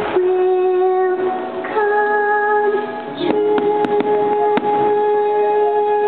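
Fireworks-show soundtrack music with long held notes that shift every second or two. A few sharp firework pops come near the middle.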